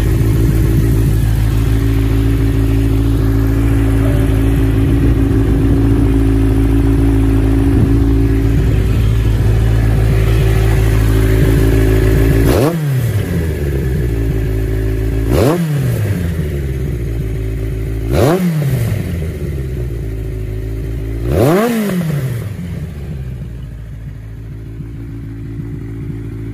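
Customised Yamaha XJR1300's air-cooled inline-four engine idling steadily, then blipped four times about three seconds apart, each rev rising sharply and falling back to idle.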